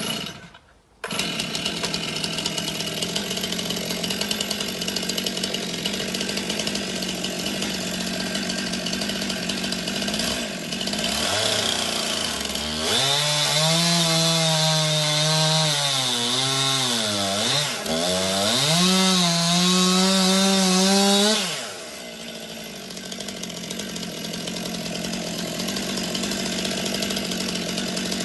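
Stihl two-stroke chainsaw running at a steady idle. About halfway through it is revved up and its note dips and recovers repeatedly for several seconds as the chain cuts into wood under load, then drops back to idle. It revs again at the end.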